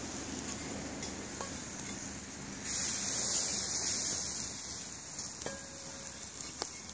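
Hot sunflower oil sizzling against a cast-iron kazan during seasoning. The sizzle jumps up sharply about two and a half seconds in, holds, then slowly dies away.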